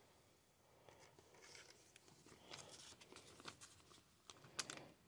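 Faint handling of baseball trading cards and a clear plastic card sleeve: soft rustles and a few light ticks, the sharpest near the end.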